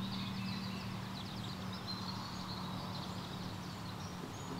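Small birds chirping and trilling, over a low steady hum that slowly fades away.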